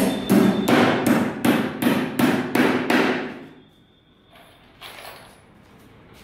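Hammer driving nails into the timber battens of a plywood column formwork box: about nine blows, roughly three a second, stopping about three seconds in, with a few faint knocks later.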